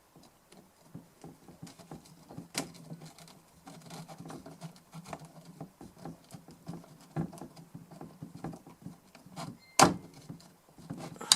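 Light, irregular clicks and taps of small metal parts and screws being handled and fitted while a DI box is put back together, with a few sharper clicks, the loudest near the end.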